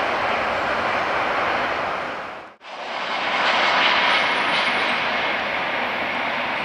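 Jet engines of an Emirates Boeing 777-300ER (GE90 turbofans) running with a steady rush. The sound cuts out briefly about two and a half seconds in, then comes back louder with a faint whine as the airliner taxis close by.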